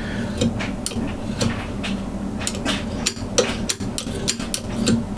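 Steel screwdriver pushed along the edge of a woodturning scraper to roll a burr over, making a series of short, irregular metallic scrapes and clicks.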